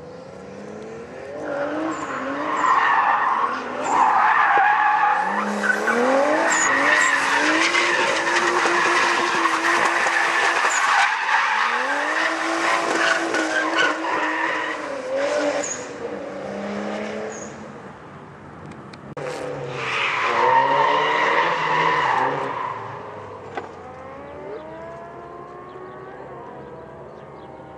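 Car drifting: the engine revs up and down while the tyres squeal in a long stretch through the first half, then again for a couple of seconds later on, with the engine running more quietly in between and near the end.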